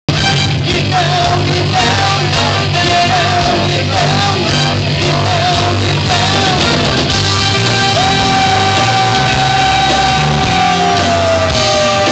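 Live rock band playing loud and steady, with a high melody line in short wavering phrases, then one long held note that bends down in pitch near the end.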